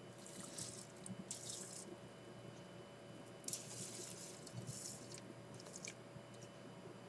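Water poured from a small plastic cup onto rice in a rice cooker's inner pot, faint short splashing pours in two groups a few seconds apart: the cooking water going in on the washed rice.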